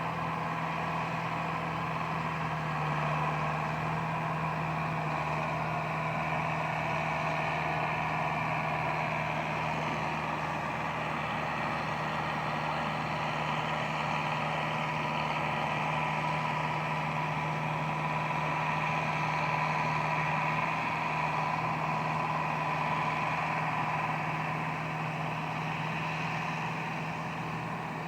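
Case 895 tractor and baler running steadily, an even engine and machinery hum with no change in speed.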